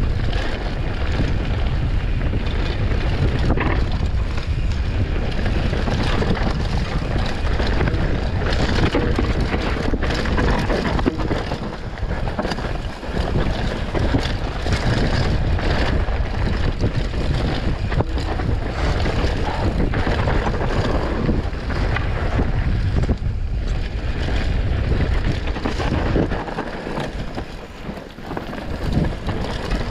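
Wind buffeting the mountain bike's camera microphone at descending speed, over tyres rolling on a dirt singletrack and frequent knocks and rattles from the bike over the bumps. The rush eases briefly a couple of times.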